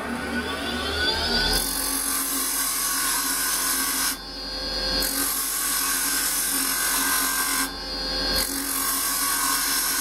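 A wood lathe spinning up, its whine rising in pitch, then a carbide chisel scraping into a spinning block of tantalised softwood in light cuts. The cutting stops briefly twice as the tool comes off the wood.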